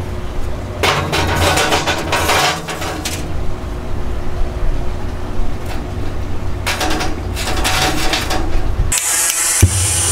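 Lumps of charcoal clattering and scraping in a stainless steel grill basket, twice, as the basket is set down and the lumps are shifted by hand. About nine seconds in, a gas torch comes on with a loud, steady hiss.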